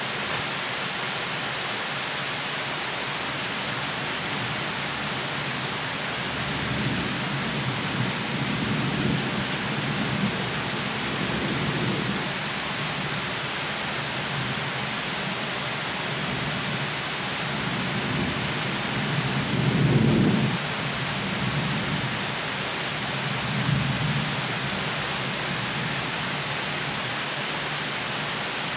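Heavy rain falling with a steady hiss, with low rolls of thunder rumbling several times, the loudest about twenty seconds in.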